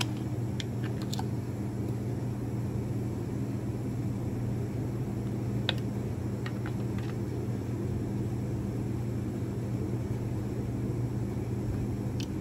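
Steady low mechanical hum, with a few faint clicks and taps from a compression tester being handled and moved to the next spark-plug hole.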